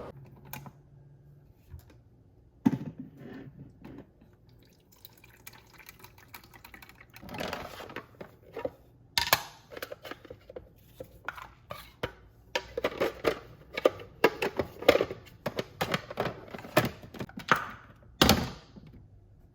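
Small knocks and clicks of toiletries being handled at a sink, with brief sounds of water. A dense run of quick, irregular strokes fills most of the second half.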